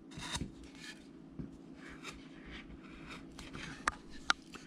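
Hand carving gouge shaving wood in short, soft scraping strokes, with two sharp ticks near the end.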